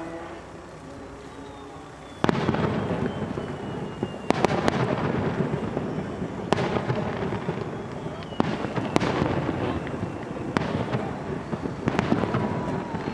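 Rapid-fire starmine fireworks barrage. About two seconds in it starts suddenly with loud shell bursts, then sharp booms land every second or two over continuous crackling.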